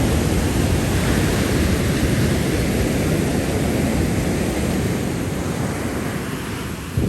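Heavy storm surf with wind rumbling on the microphone, a steady loud noise that eases a little near the end, with a short knock at the very end.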